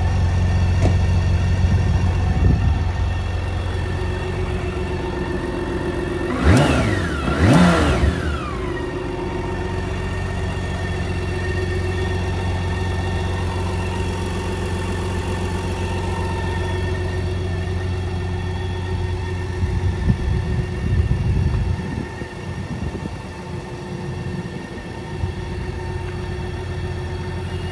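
BMW K 1600 GT's inline six-cylinder engine idling steadily. The throttle is blipped twice in quick succession about six seconds in, each rev rising and falling, and then it settles back to idle.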